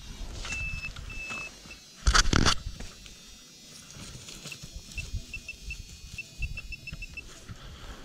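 Handheld metal-detecting pinpointer beeping in short high pulses at one pitch that come closer together as it is worked over a buried target, after a few longer beeps near the start. A loud burst of handling noise about two seconds in.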